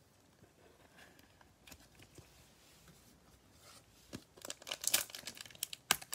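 A trading-card pack's shiny plastic wrapper crinkling and tearing as it is ripped open by hand, with a few faint handling rustles first and the crackling starting about four seconds in.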